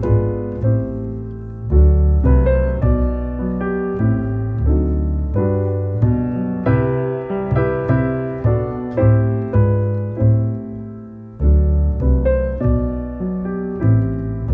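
Background music: piano playing a slow, gentle piece, single struck notes fading over low bass chords. The bass drops out for about a second near the end, then comes back.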